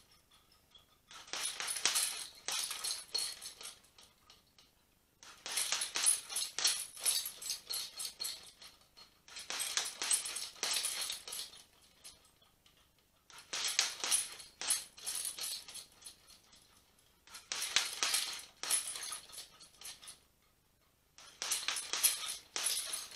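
Gloved punches landing on a hanging heavy bag in repeated five-punch combinations, the bag's metal suspension chain clinking and jangling with the hits. Six bursts of strikes come about every four seconds, with short pauses between.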